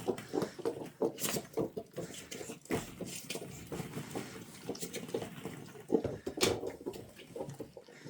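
Plastic ball-pit balls clattering and rattling against each other in irregular little clicks as they are pushed about, with some louder clusters about a second in and around six seconds in.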